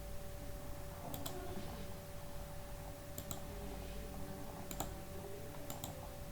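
Computer mouse clicking: four short double clicks spread across a few seconds, over a steady faint electrical hum.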